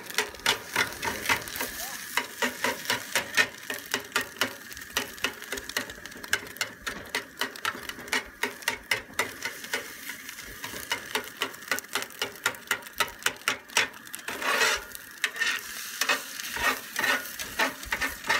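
Metal spatula scraping and tapping against a cast iron pan in quick repeated strokes, about two or three a second, as a large batch of scrambled eggs sizzles in it.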